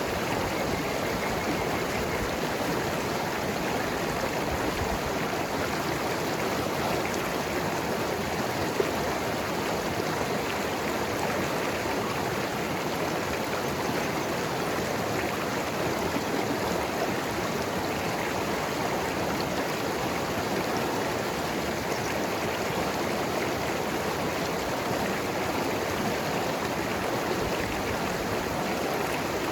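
Mountain river rushing and gurgling over rocks: a steady, even wash of flowing water.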